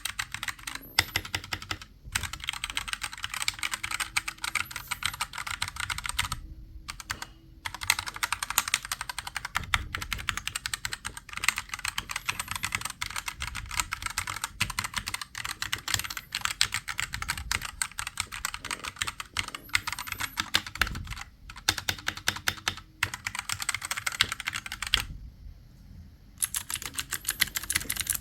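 Fast typing on a computer keyboard: rapid, continuous keystroke clicks in long runs, broken by a few short pauses.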